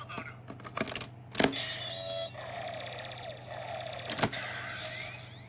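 Kamen Rider W transformation-belt toy being worked: sharp plastic clicks as Gaia Memories are pushed in and the driver is snapped, loudest about a second and a half in and again near the end. Between the clicks the toy plays electronic beeps, steady tones and sweeping synthetic glides.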